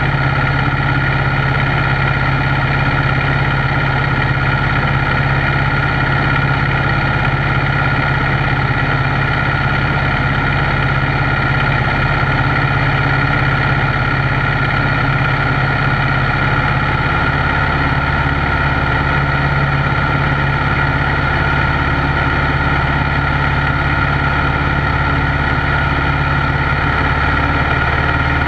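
Piper PA-12 Super Cruiser's engine and propeller droning steadily in flight, heard from inside the cockpit.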